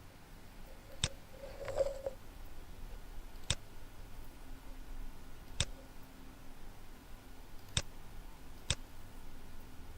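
Computer mouse clicking: five single sharp clicks spaced one to two seconds apart.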